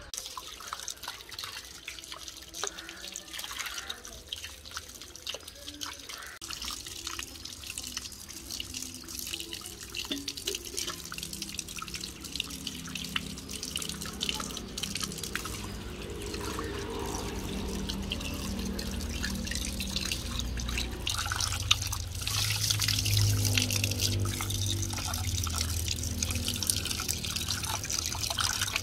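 Water running from a tap, splashing and dripping over hands and into a terracotta bowl as cleaned fish are rinsed. The splashing grows louder about two thirds of the way through, as the stream pours into the bowl of fish.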